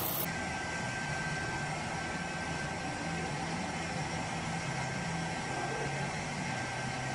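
Steady engine drone and rushing hiss with a faint, steady high whine, like the cabin noise of an aircraft flying over the scene.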